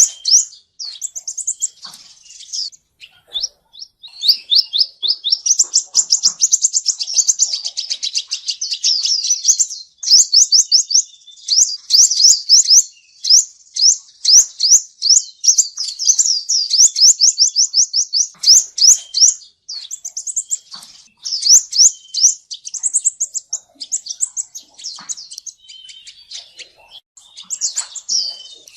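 Male sunbird singing: long, rapid trills of thin, high, repeated notes, broken by short pauses and a few sharper chips. It is the kind of song that is played back to lure sunbirds into traps.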